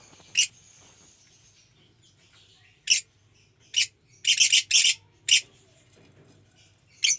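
Lovebird chicks giving short, high, sharp calls at irregular intervals, with a quick run of several calls near the middle.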